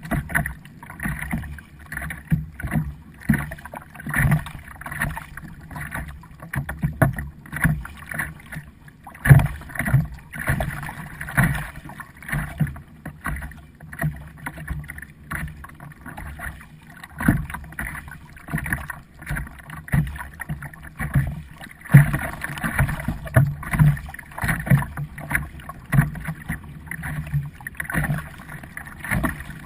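Kayak paddling: the paddle blades dip and splash stroke after stroke, with water sloshing against the hull.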